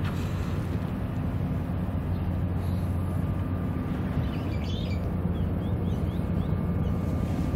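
Steady low hum of distant machinery, unchanging in loudness, with a few faint high chirps about halfway through.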